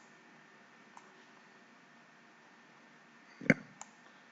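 A few computer mouse clicks over faint room hiss: a small one about a second in, then a sharper click about three and a half seconds in with a lighter one just after.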